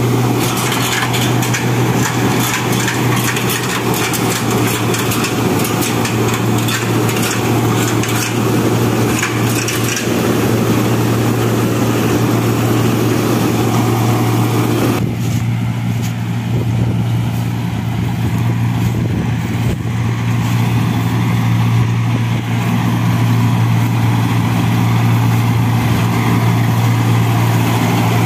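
Turbocharged Mahindra Arjun Novo 605 tractor diesel engine running steadily under load as it drives a straw reaper through wheat stubble. The reaper's crackling chopping of straw runs over the steady engine hum, and it is heavier in the first half.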